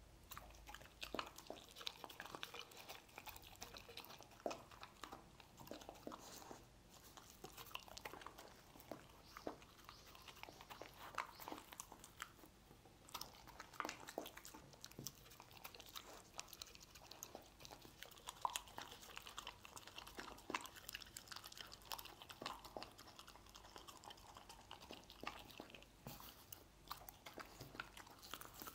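Dog eating chopped stir-fried meat: quiet, irregular chewing and crunching, a steady run of short clicks and crunches as it bites and chews.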